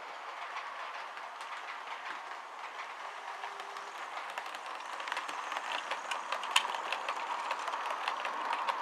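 Model railway train running: a model Class 67 locomotive hauling mail coaches, a steady whirr with rapid clicking of wheels over the track. It grows louder with more clicking from about five seconds in as the coaches pass close.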